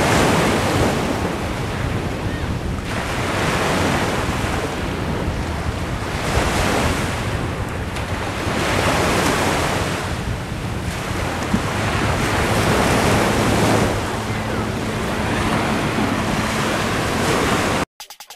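Strong storm wind gusting over the microphone together with surf on a beach, a loud rushing noise that swells and eases every few seconds. It cuts off abruptly near the end.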